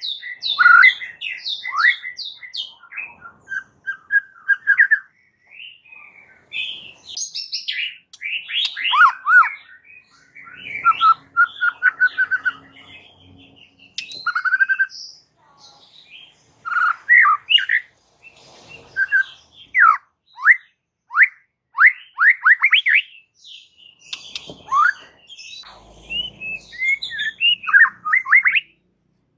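White-rumped shama (murai batu) singing in full voice: a varied run of rising and falling whistles and quick trills, in phrases separated by brief pauses.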